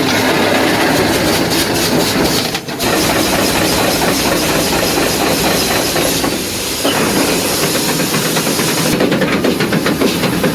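1928 Osgood steam shovel working, its steam engine running with a steady hiss of steam.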